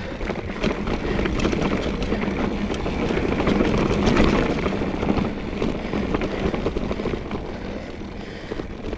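Trek Fuel EX 5 mountain bike rolling fast over a rough dirt trail: a steady rush of tyre noise full of small knocks and rattles, loudest about four seconds in.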